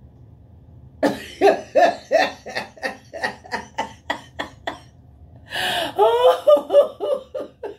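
A woman laughing hard in rapid breathy bursts, about three or four a second, starting about a second in and rising to a louder, breathier peak about two-thirds of the way through.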